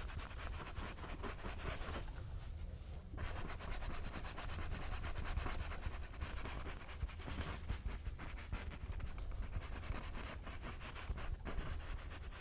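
A bristle paintbrush rubbing over a canvas in quick repeated strokes, working wet oil paint. The strokes pause for about a second from about two seconds in, then carry on.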